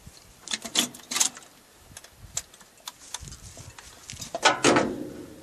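Hand tools and metal parts clicking and clinking as the carburetor and throttle linkage of a 1969 GMC truck are worked loose, with a louder metallic clatter about four and a half seconds in.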